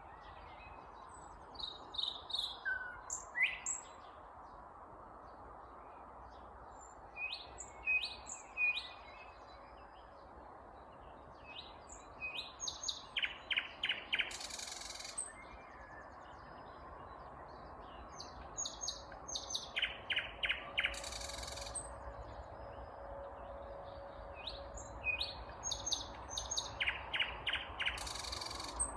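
A nightingale singing in separate loud phrases of quick repeated notes and fast rattling series, with pauses of a few seconds between phrases, over a steady background rush.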